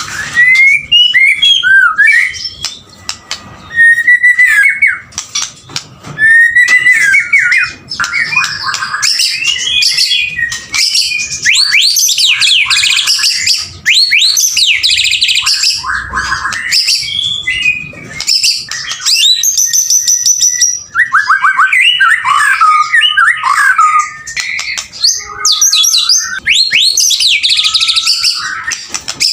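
Male white-rumped shama (murai batu) singing continuously in full song: a loud, varied stream of clear whistles, quick trills and rapid chattering note series with only brief pauses.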